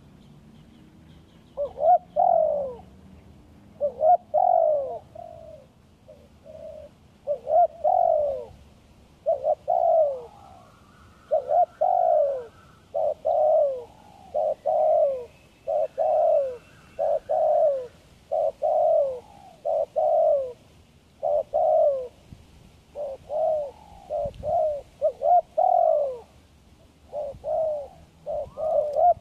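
Spotted dove cooing over and over: a steady run of loud, short, falling coos, roughly one a second, from a caged decoy bird.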